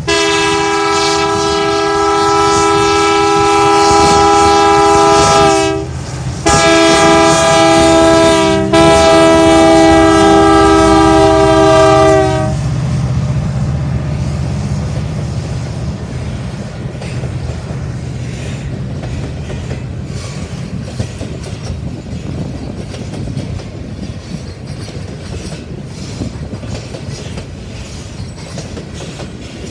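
A freight locomotive's air horn sounds three chord blasts, the first and last long, the tones bending down as the last one ends. Then come the low rumble and wheel clatter of the grain train rolling past.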